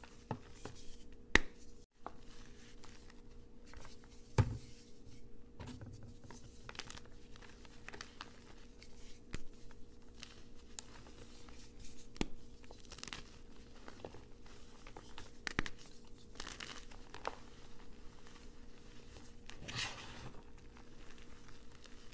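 Hands crushing and crumbling gym chalk: irregular crisp crunches and crackles with softer scrunching, a few sharper snaps, over a faint steady hum.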